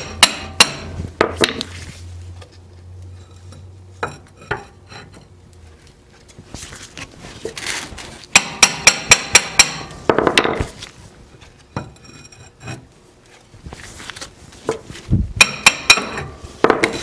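Hammer tapping on a metal rod wedged against the old Dana 30 axle seal inside the axle tube, driving the seal out. The sharp metal strikes come in bursts: a few at first, a quick run of about six in a second around the middle, and another cluster near the end.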